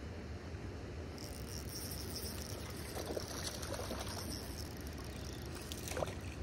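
A spinning reel whirring as it is wound against a hooked trout, with the fish splashing at the water's surface a few times, about halfway through and again near the end. Steady wind rumble on the mic underneath.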